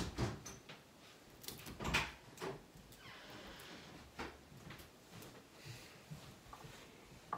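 Garlic cloves being peeled by hand at a kitchen counter: a few light knocks and clicks, and a brief papery rustle about three seconds in.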